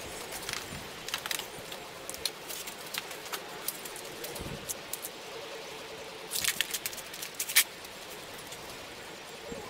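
Hand tools and small wiring parts being handled: scattered light clicks and clinks, with a quick cluster and one sharper click about three-quarters of the way through.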